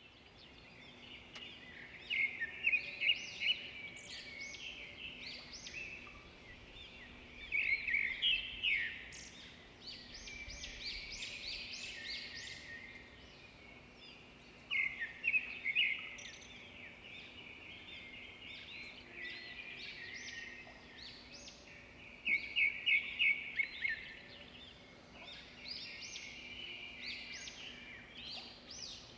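Birds chirping in repeated bursts of quick high notes, over a faint steady low hum.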